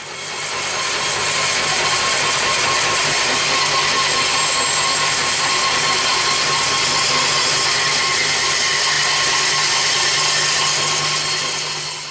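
A power tool running steadily with a loud hiss and a low hum under it, fading in over the first second and fading out near the end.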